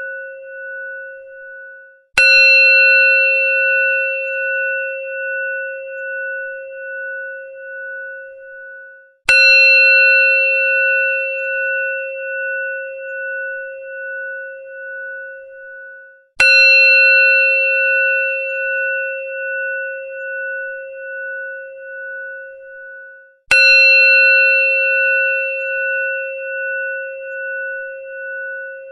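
Temple bell struck four times, about seven seconds apart, each stroke ringing on with a slowly pulsing tone that fades until the next strike. The tail of an earlier stroke's ring is heard at the start.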